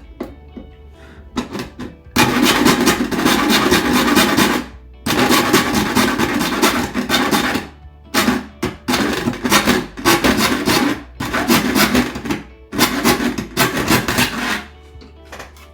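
Circuit board blank being cut by hand: a series of rasping cutting strokes, two long ones of nearly three seconds each early on, then shorter, quicker ones.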